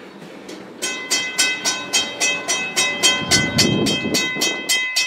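A railroad bell ringing steadily, about three strikes a second, each strike leaving a ringing tone; it starts just under a second in. A low rumble swells briefly underneath midway.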